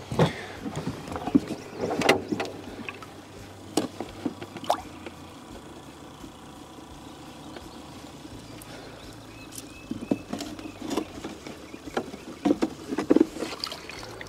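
Scattered knocks, bumps and clatter of gear being handled on a jon boat: the livewell lid being opened at the start, then a cluster of knocks and water sounds near the end as a bluegill is scooped from the livewell with a landing net. Between them a quieter stretch with only a faint steady background.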